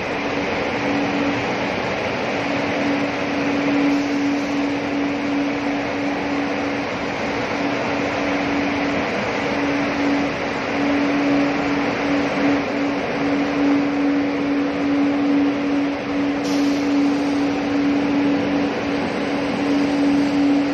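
Dog food production line machinery running steadily: a continuous mechanical hum with one strong low tone over a broad even whirr.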